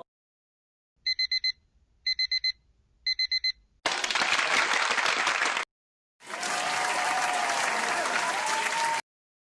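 Digital alarm clock beeping in three bursts of four quick beeps, about a second apart. Then two stretches of applause: a short one that cuts off suddenly, and a longer one of about three seconds.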